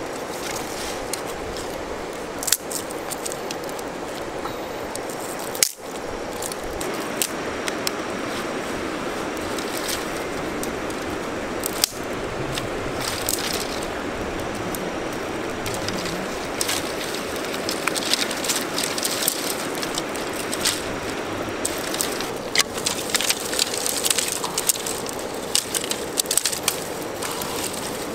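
Small wood fire of sticks and dry grass crackling over a steady hiss, with sharp pops and snaps that come thick and fast in the last ten seconds or so.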